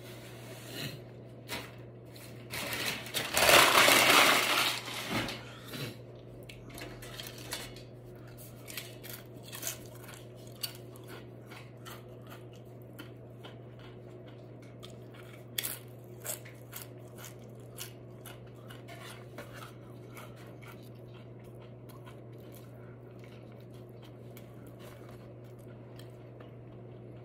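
Close-miked eating of tortilla chips: a loud burst of crackling about three seconds in, lasting about two seconds, then scattered crunches and mouth clicks of chewing that thin out over the last several seconds. A low steady hum sits underneath.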